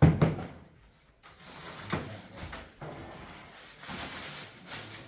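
A sharp knock at the start, then several seconds of rustling with a few scattered knocks.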